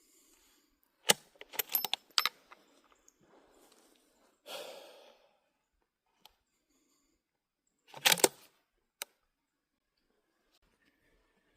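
A few sharp clicks and knocks of close handling, one about a second in, a quick cluster just after, and another cluster about eight seconds in, with a single heavy breath out between them.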